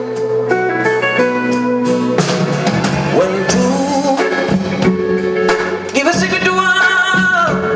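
Band music with guitar, drums and a singer, in a bluesy rock style. A voice holds wavering sung notes about three seconds in and again near the end.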